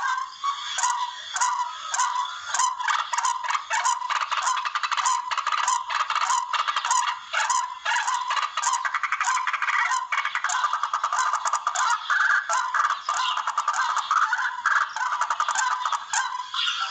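Recorded lure call of the tikling (barred rail) played for bird hunting: rapid, rattling clicking notes repeated continuously, with harsher cries mixed in.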